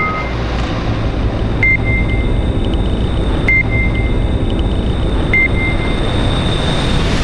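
Produced sound-effect bed for a radio promo: a deep, steady electronic rumble with a thin high tone over it, and a short electronic beep with fainter quick echoes recurring about every two seconds, four times.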